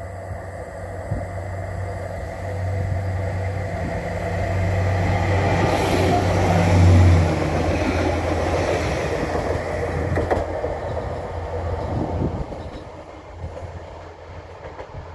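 Stadler FLIRT diesel multiple unit approaching and passing by: the low drone of its diesel engine and the rumble of its wheels on the rails build to a peak about seven seconds in, with a few sharp clicks, then fade as it runs away.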